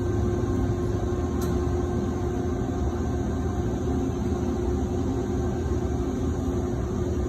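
HEM VT140HA-60 vertical band saw running with no workpiece in the cut: a steady low hum from the motor and blade drive, with a constant tone over it.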